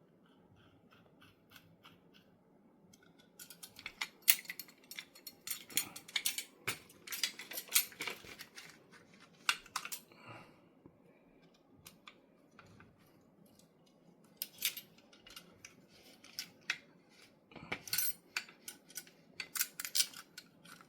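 Revolver grip panels being fitted back onto the frame: light clicks, taps and scrapes of grip against metal in two bursts of handling, the first a few seconds in and the second in the last third.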